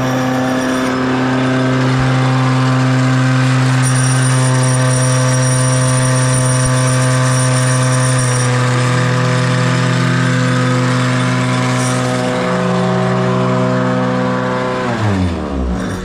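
Concrete pump truck's diesel engine running steadily at working speed, revving down near the end.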